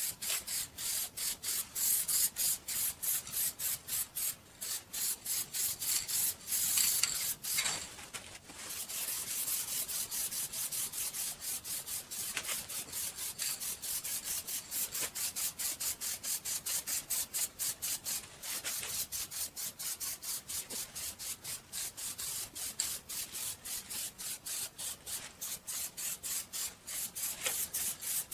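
Hand sanding a dark-stained wooden table frame's curved leg, the abrasive scratching back and forth in quick, even strokes about three a second, with a short pause about eight seconds in.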